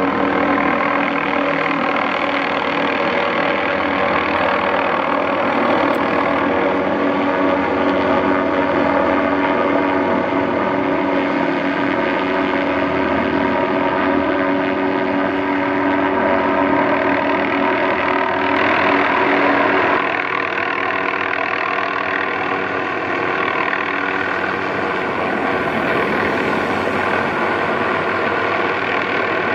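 MD530F helicopter running, its turboshaft engine and rotor giving a steady whine and hum. About two-thirds of the way through, a lower tone drops away and the sound becomes slightly quieter.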